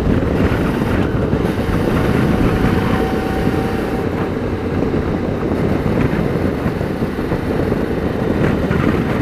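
Steady wind rush and buffeting on a helmet boom mic while riding a Suzuki V-Strom 650 motorcycle, with its V-twin engine running underneath.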